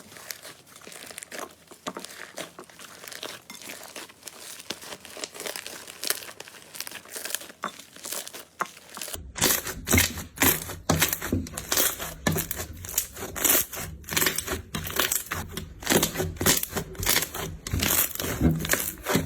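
Slime being squeezed and pressed, giving a dense run of crackling, popping clicks. About nine seconds in it cuts to a louder clip of sharper, more spaced pops.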